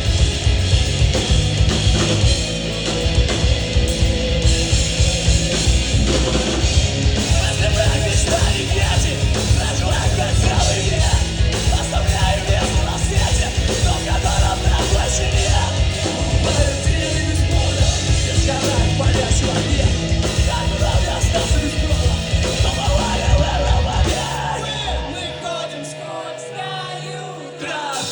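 A rock band playing loud, live, with vocals over drums and guitars. About 24 seconds in, the drums and bass drop out and the music thins and quiets for a few seconds, before the full band comes back in at the very end.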